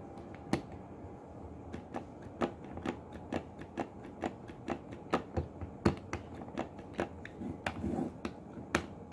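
Quick irregular clicks and taps, a few a second, from multimeter test probes being touched against the metal terminals of a DC magnetic contactor held in the hand during a continuity check of its contacts.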